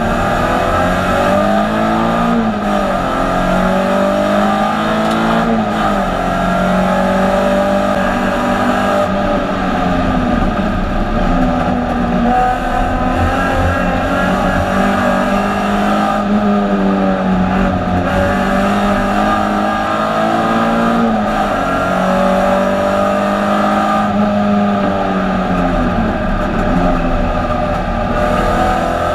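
Alfa Romeo 156 GTA's 3.2-litre V6 racing at full throttle, heard from inside the stripped cabin. The engine note climbs through the revs and drops back repeatedly with gear changes and braking for corners.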